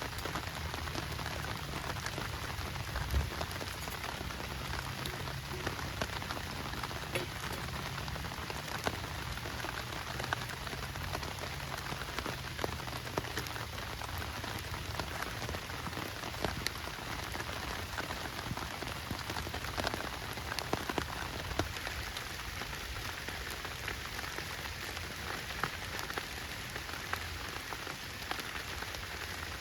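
Heavy rain falling steadily, with many sharp taps of individual drops striking close by.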